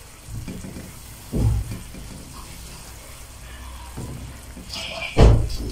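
Sugar syrup bubbling in an aluminium pot as it is stirred with a silicone spatula, with some sugar not yet dissolved. A few dull bumps break in, loudest about a second in and near the end.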